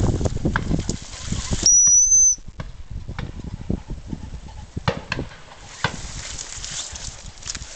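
Footsteps crunching through dry grass and stubble. About two seconds in comes one short, steady, high-pitched gundog whistle blast, the loudest sound. After it come faint scattered rustles and snaps in the dry vegetation.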